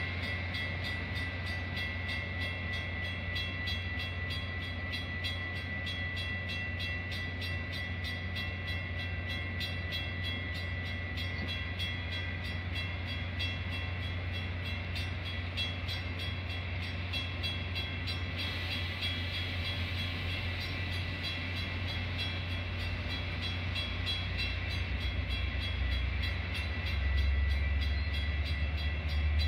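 Metra commuter train standing at the platform: its diesel locomotive runs with a steady low hum under a steady high-pitched whine. Near the end the low rumble grows louder as the engine loads up to push the train away.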